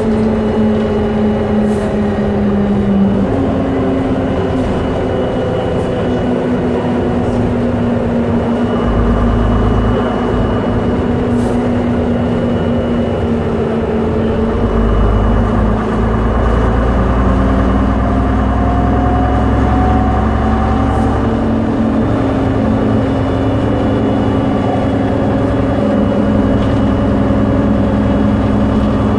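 Diesel engine of an MCW Metrobus double-decker bus under way, a steady drone that steps in pitch about three seconds in, with a deeper rumble swelling in the second half and a few faint rattles from the body.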